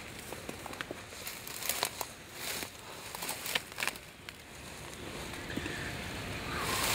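Dry grass and brush rustling and crackling as a dead whitetail buck is handled and its head lifted by the antlers, with scattered small snaps and crinkles.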